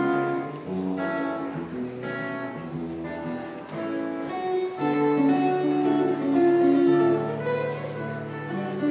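Two acoustic guitars playing together live, strummed and picked chords with notes that ring and change every second or so.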